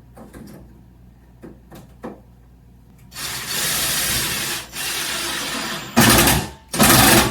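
Cordless drill driving the screws of a door latch into the edge of a door: a few light clicks first, then a few seconds of the drill running, and two louder short runs near the end.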